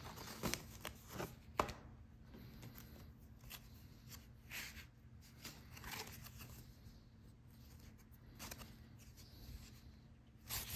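Cardboard scratch-off lottery tickets being handled and shuffled by hand: faint scattered rustles, light taps and short swishes.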